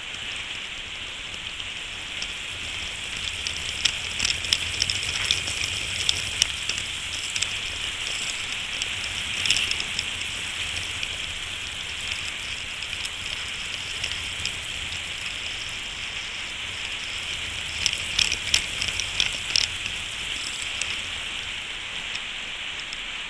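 Light small clicks and ticks of tiny plastic and metal parts being handled on a workbench, bunched in two spells, over a steady hiss.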